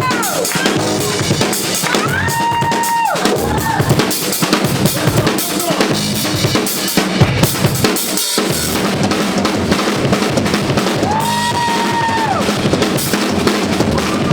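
Live band playing an instrumental passage, the drum kit up front with bass drum and snare hits. A high note slides up, holds and falls away twice.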